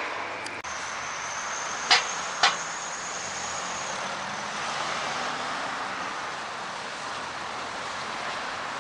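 Steady rushing noise of wind and road traffic on a city street, with a thin high whine in the first few seconds and two sharp clicks about half a second apart near the two-second mark.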